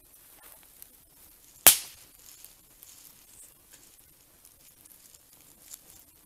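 Wood campfire crackling with faint scattered ticks, and one loud sharp pop about a second and a half in.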